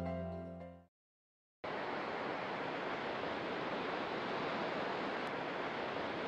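Soft instrumental music fades out within the first second. After a short gap of silence, a steady, even rushing noise like sea wash starts and holds without change.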